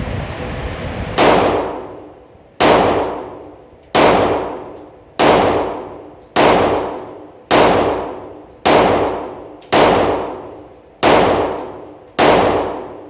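Ten shots from a Glock 20 10mm Auto pistol fired at a steady pace, about one every 1.2 seconds, each shot followed by a long echoing decay.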